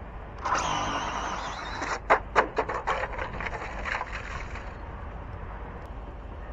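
Electric RC drag car launching off the line and running away down the strip: a sudden burst of high motor and tyre noise about half a second in that fades out over the next few seconds. A quick run of sharp clicks or slaps comes in the middle.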